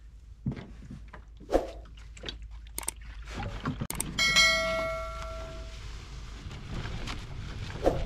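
Knocks and scraping of a Lifetime Yukon kayak as it is grabbed and dragged up a sandy bank, with footsteps. About four seconds in, a click and a bell chime ringing for about a second and a half: a subscribe-button sound effect.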